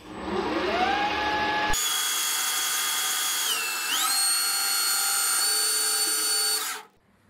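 Boxford 280T metal lathe's inverter-driven motor and spindle spinning up with a rising whine. Then, at first-cut turning of a metal bar, a louder whine with a cutting hiss whose pitch dips and then rises to a higher steady note about four seconds in. It stops abruptly near the end.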